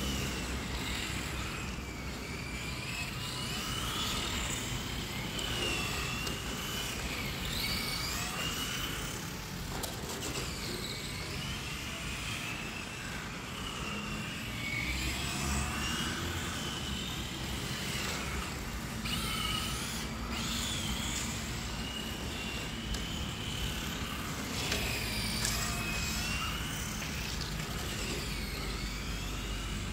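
Tamiya TT-02 electric 1/10-scale RC touring cars running laps, their motors and gears whining in pitch that rises and falls over and over as they speed up and slow down.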